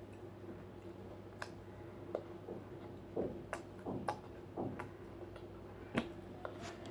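Close-up eating sounds: moist chewing with about half a dozen sharp clicks and taps at irregular intervals, the loudest near the end.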